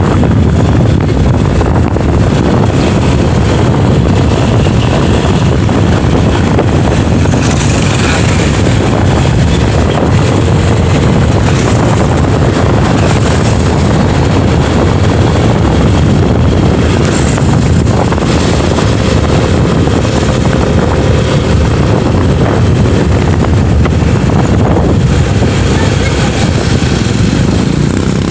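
Steady loud rumble of a vehicle riding along a road, its engine and road noise mixed with wind rushing over the microphone.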